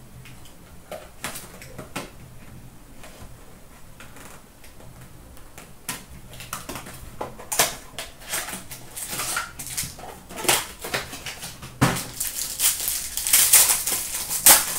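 Light handling clicks, then a hockey card box being opened and a foil pack wrapper being handled and torn open, a dense run of crinkling crackles that grows loudest near the end.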